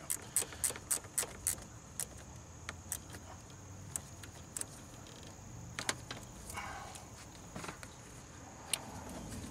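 Metallic clicks and clinks of a hand tool on a car's side-post battery terminal as the battery cable is reconnected. A quick run of about four clicks a second comes in the first second and a half, then scattered single clicks.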